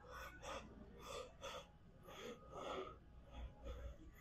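A weightlifter's faint, quick breaths during a slow set of dumbbell flyes, several short puffs a second between the harder exhales of each rep.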